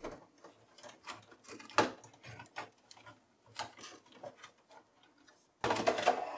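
Scattered clicks and knocks of a computer motherboard being worked out of its cramped sheet-metal desktop case. A denser, louder stretch of rubbing and knocking comes near the end, as the board tilts up and out.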